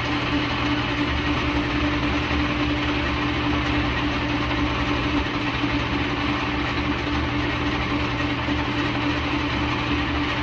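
Vintage engine lathe running steadily with a constant hum during a threading pass on a small steel tube.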